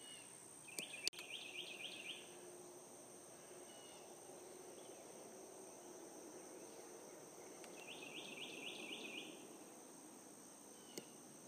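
Faint outdoor chorus of insects: a steady high-pitched drone, with a short run of about seven quick chirps heard twice, about a second in and again near eight seconds in.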